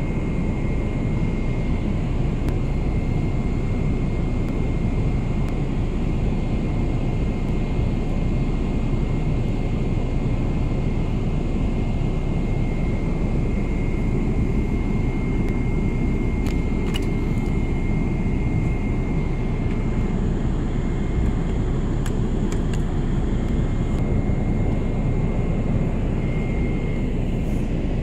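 Steady cabin noise of a Boeing 777-300ER airliner: an even low rush and drone of airflow and engines, with a faint steady high whine and a few faint clicks in the middle and near the end.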